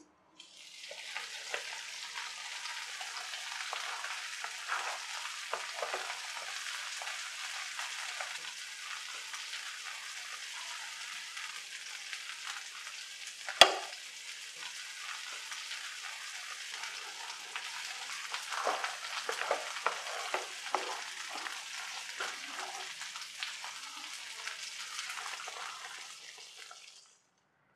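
Thick prawn curry gravy sizzling and bubbling in a pan over a low flame, a steady hiss with many irregular soft pops. One sharp click sounds a little past halfway.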